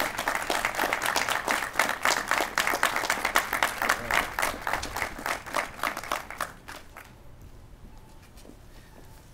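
Audience applauding, many hands clapping at once, dying away about six and a half seconds in.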